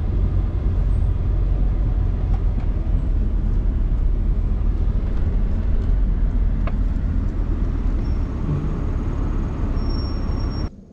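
Steady low rumble of road and engine noise inside a moving vehicle, cutting off abruptly near the end.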